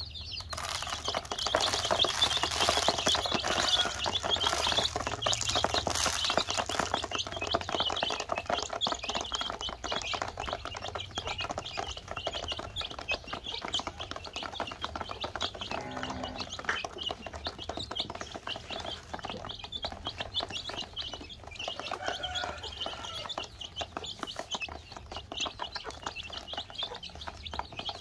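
Domestic chicks cheeping while their beaks tap rapidly on a plastic basin as they peck up feed crumbs. The tapping is densest and loudest in the first several seconds, then thins out.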